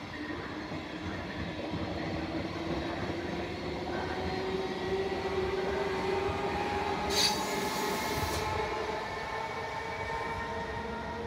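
Electric passenger train of coaches pulling away, its wheels rumbling on the rails under a whine that rises slowly in pitch as it gathers speed. A short hiss about seven seconds in.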